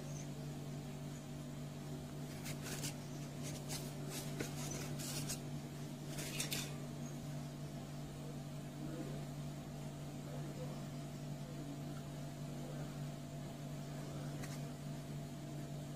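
Steady machine hum, holding a few fixed pitches. Several short scratchy handling noises come in the first seven seconds as the Styrofoam handle pattern is handled.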